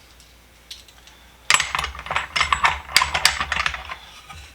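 Metal socket-set pieces clicking and clattering against each other and their box as they are fitted in. The dense run of clicks starts about a second and a half in and eases off near the end.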